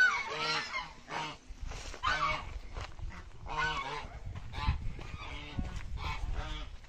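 Domestic geese honking over and over, short nasal calls following one another throughout, with a dull thump about two-thirds of the way through.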